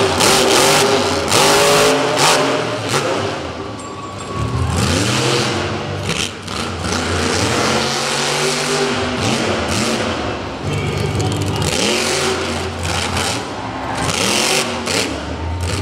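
Monster truck engine revving hard again and again, its pitch climbing and falling with each blip of the throttle.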